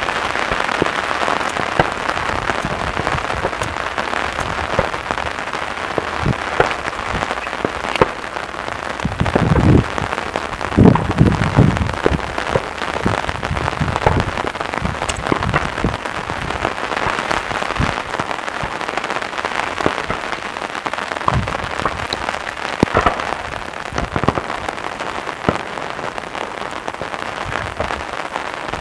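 Daytime fireworks: a dense, continuous crackle of many small pops, with a cluster of deeper booms about ten to twelve seconds in.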